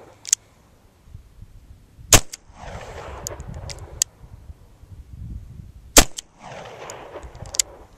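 1895 Nagant revolver firing 7.62 mm rounds: two sharp shots about four seconds apart, each followed by an echo that rolls away over a second or so. A lighter crack comes just after the start, and a few fainter clicks fall between the shots.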